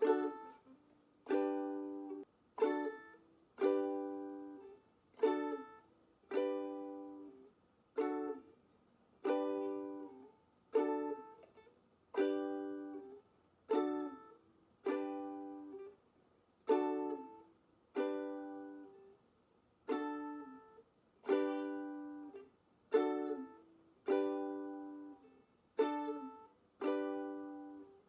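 Ukulele strumming single chords, changing back and forth between D and G. Each chord is struck once and left to ring and fade, about one strum every second and a half, sometimes two quick strums close together.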